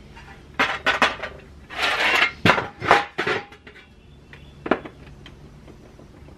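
Metal parts of an old Frigidaire repulsion-induction motor clinking and scraping as they are handled and fitted back together: a quick run of sharp clinks with a short scrape, then a single clink about a second later.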